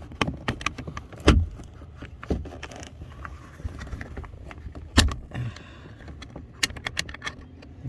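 Sharp clicks and small rattles from a door-handle cable being worked out of its plastic clip on a removed car door panel, with the loudest clicks about a second in and at five seconds, and a quick run of clicks near the end.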